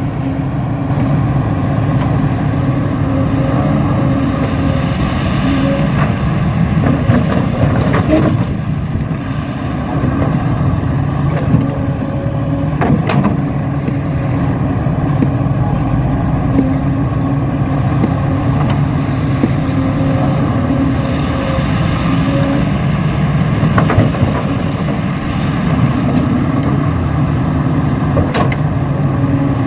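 Remote-control model excavator and dump truck working: a steady, engine-like drone runs throughout, with a thin high whine that rises and falls at times and a few sharp clicks.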